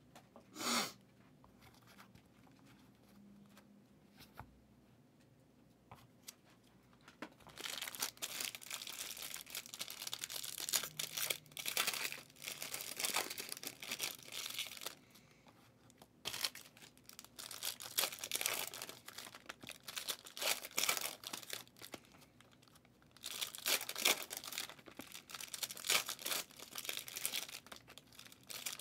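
2023 Prizm football hobby pack wrappers being torn open and crinkled by hand. After several near-quiet seconds, the crackling tearing comes in three runs with short pauses between.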